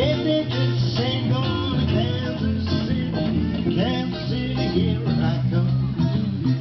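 Live band music led by guitar, with a steady bass line underneath.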